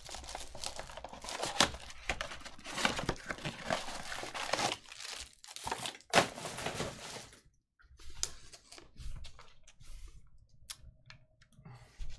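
Clear plastic shrink wrap crinkling and tearing as it is stripped off a box of trading cards, dense for about seven seconds. After that come a few light, separate clicks and rustles as the foil card packs are handled.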